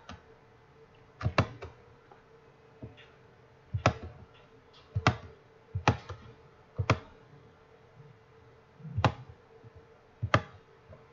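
Computer mouse clicking, single and double clicks spaced irregularly about a second apart, over a faint steady hum.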